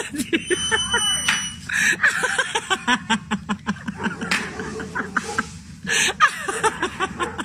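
People talking and laughing, with quick bursts of laughter.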